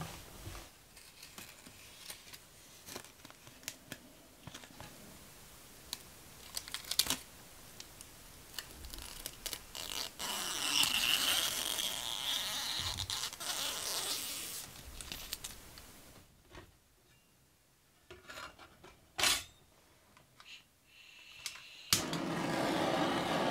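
A cloth rag rubbing over a small metal sheet with faint rustles and small clicks. Then protective plastic film is peeled off a metal sheet with a crackling hiss lasting several seconds. A few sharp clicks follow, and near the end a steady rushing noise starts.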